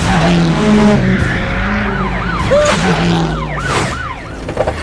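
Police siren sound effect wailing in quick rising-and-falling sweeps, several in a row, over a car engine sound.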